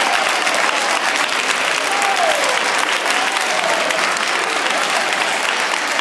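A large audience of schoolchildren clapping steadily, with a few voices calling out over the applause.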